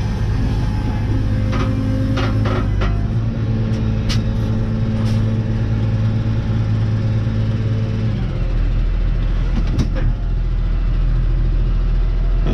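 Farm tractor's diesel engine running at steady revs, its note dropping lower about eight seconds in, with a few sharp clicks over it.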